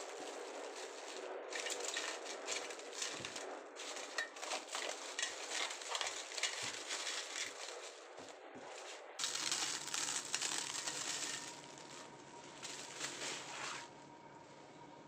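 Plastic cling film crinkling and crackling as it is stretched and pressed over the rim of a bowl, in quick irregular crackles that stop near the end.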